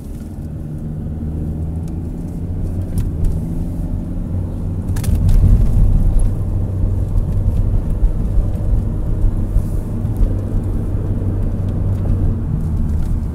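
Engine and road noise inside a moving car's cabin: a steady low rumble that grows louder about five seconds in.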